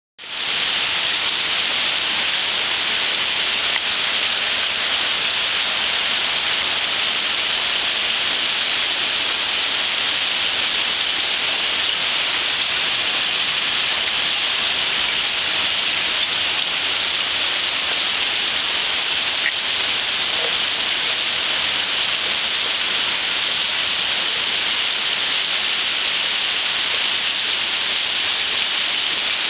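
Steady rain falling on a wet concrete patio and lawn: a dense, even hiss that holds unchanged throughout.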